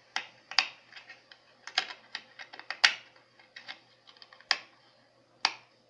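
Plastic DVD case being handled and shut: an irregular run of sharp clicks and taps, with a few much louder snaps among them.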